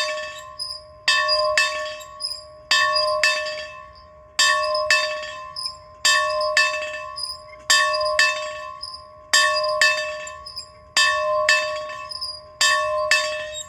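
A bell being rung, its clapper striking in pairs, about one pair every second and a half. Each strike rings on with a steady tone that fades slowly.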